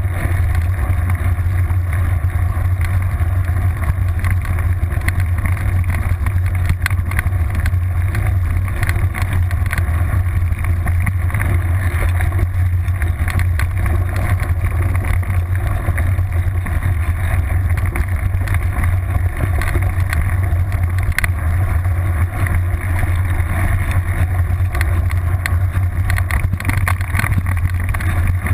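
Steady rumble of tyre rolling and wind noise on a camera clamped to a mountain bike's seat post, riding over a gravel and dirt trail, with a constant low hum and frequent small rattles and knocks from the bike.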